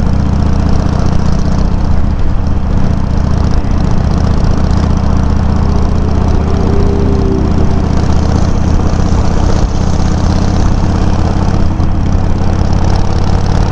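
Harley-Davidson Sportster 883's air-cooled V-twin running steadily through Customer aftermarket exhaust tips, picked up by a microphone mounted on the bike. The engine note stays even, with no big revving.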